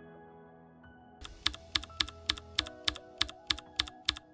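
Soft music with sustained tones plays throughout. From about a second in, a run of about ten sharp keyboard-typing clicks, roughly three or four a second, plays over it.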